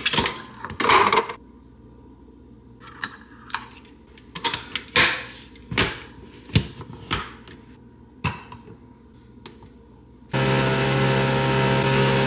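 Clicks and knocks of a Nespresso capsule coffee machine being loaded: the lid handled, a capsule dropped in and a glass cup set on the drip tray. About ten seconds in, the machine starts up with a steady, loud motor hum as it begins to brew.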